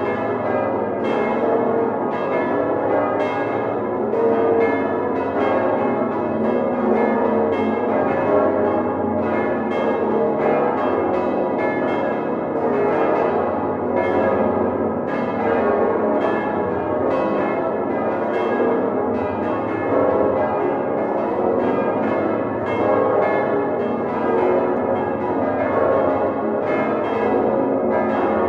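Full peal of the Utrecht Dom Tower's swinging bronze church bells, all rung together by hand, heard from inside the bell chamber. The strokes of the many bells overlap in a dense, steady, irregular ringing with no pause.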